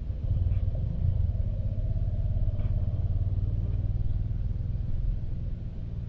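Low steady rumble of an idling motorcycle engine, with a faint hum from a petrol dispenser while fuel is pumped into a motorcycle tank.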